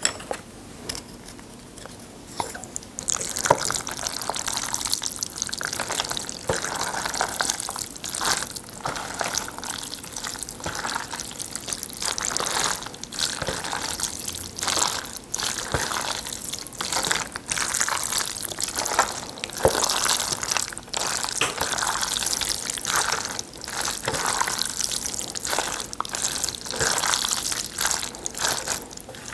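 Wooden chopsticks mixing and tossing a plate of noodles in thick black-bean sauce (seafood jjajangmyeon). It makes a dense run of wet, sticky noises and small clicks, starting about three seconds in.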